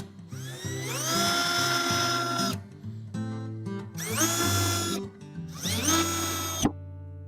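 Power drill running in three bursts, each whine rising in pitch as the motor spins up and then holding steady, with background music underneath.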